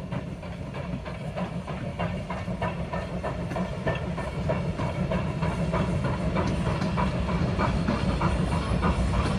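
Norfolk & Western 475, a 4-8-0 steam locomotive, working with its exhaust chuffing in a steady rhythm of about three beats a second, with steam hissing, growing louder as it approaches.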